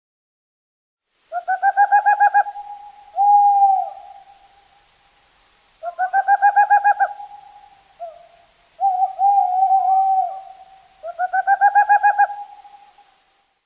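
A bird calling: three bursts of rapid pulsed hooting notes, each about a second long, with longer drawn-out hoots between them.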